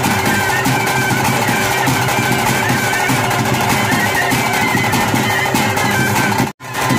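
Tulu daivaradhane (kola) ritual music: fast drumming under a wavering high melody line and a steady drone. The sound cuts out for an instant near the end.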